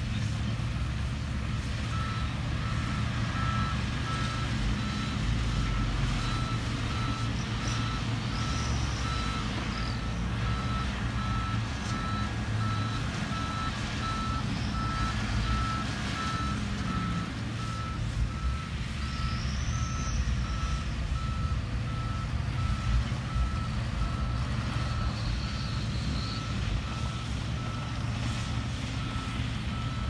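Diesel engines of dump trucks and a crawler bulldozer running, with a reversing alarm beeping steadily at one pitch from about two seconds in.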